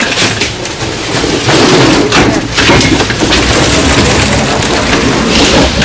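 Loud, steady rushing noise from a passenger hovercraft's engines and fans, growing louder about a second and a half in as the door opens onto the ramp.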